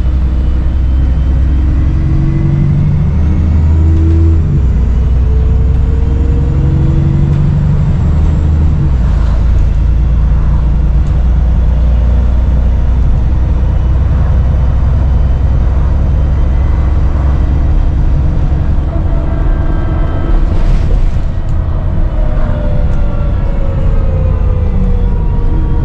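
Dennis Trident 2 / Enviro 400 double-decker bus engine running under way, its pitch rising and falling as the bus pulls away and accelerates, with a faint high turbo whistle above the heavy rumble.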